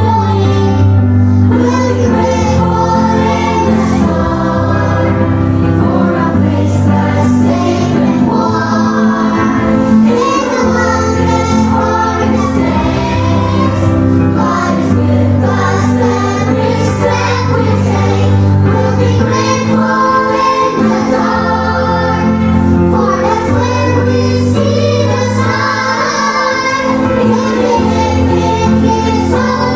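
Children singing together with instrumental accompaniment, a steady bass line moving note by note under the voices.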